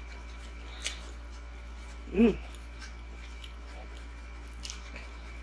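A person chewing a mouthful of turkey slider on a soft bun, with faint wet mouth clicks. About two seconds in there is one short hummed "mm" of enjoyment that rises and falls in pitch.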